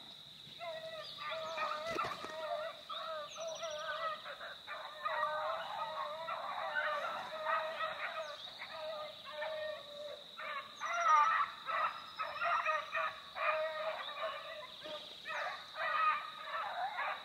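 A pack of beagles baying from about a hundred yards off, many short overlapping chop-mouth notes. This is hounds giving tongue as they work a rabbit's scent trail.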